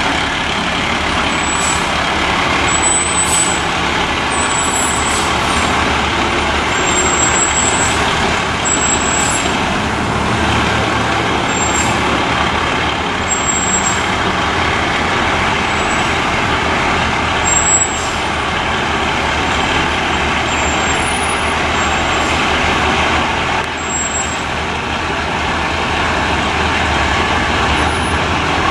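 Aerial ladder fire truck's diesel engine running steadily at low speed as the truck slowly backs into its station bay.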